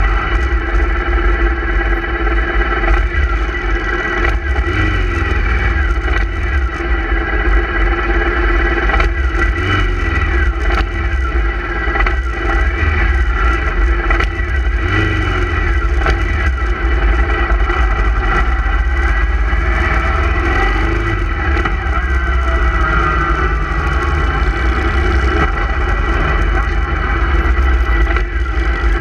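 A column of motorcycles riding past one after another in the opposite direction, their engines sliding in pitch as each goes by. Under them is a steady engine drone and heavy wind rumble on the microphone of the moving vehicle.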